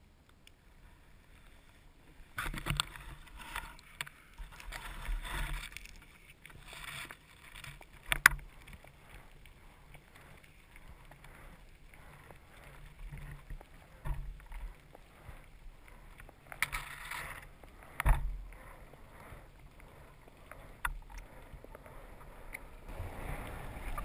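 Underwater water movement and handling noise around a freediver's speargun, coming in irregular surges. There are sharp knocks about 8 and 18 seconds in.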